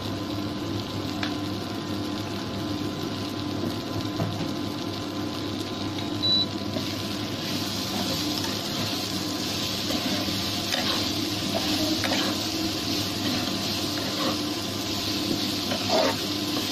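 Spiced soya chunks and potatoes sizzling in an aluminium pressure-cooker pot. The hiss grows stronger about halfway through, and a few short scrapes of a spoon stirring against the metal come near the end. A steady hum runs underneath.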